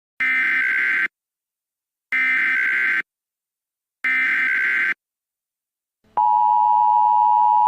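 Emergency Alert System tones: three bursts of SAME header data, each just under a second long and about a second apart, then about six seconds in the steady two-tone EAS attention signal starts and holds. The header is a made-up, invalid one.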